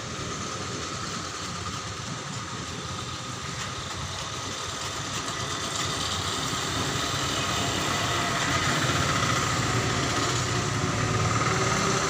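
Steady vehicle engine and traffic noise, slowly growing louder.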